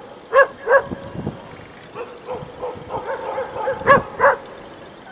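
Domestic geese honking: two pairs of loud honks, one pair just under a second in and another near four seconds, with softer honks between them.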